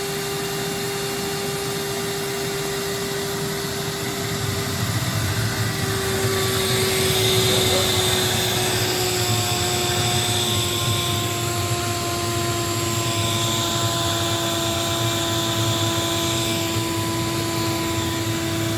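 Wet/dry shop vacuum, filter removed, running steadily as it sucks water and debris out of a drain basin. Its motor whine sinks slightly in pitch; about five seconds in it grows louder with added hiss, and a second, higher whine joins a few seconds later.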